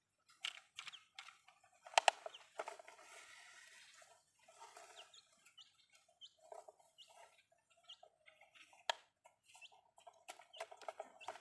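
Chickens clucking softly in short, repeated notes. Sharp knocks come about two seconds in and again near nine seconds.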